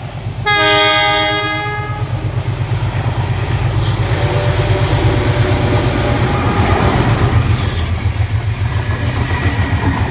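A loud multi-note horn blast from the approaching NSW 44 class diesel-electric locomotive 4490, lasting about a second and a half, then its Alco diesel engine throbbing rhythmically and growing louder as the locomotive and its passenger carriages roll past.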